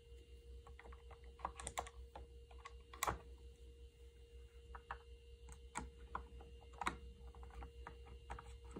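Scattered light clicks and taps of the handle parts and a screw on a Brother KH-890 knitting machine carriage being fitted by hand. Two sharper clicks come about three and seven seconds in.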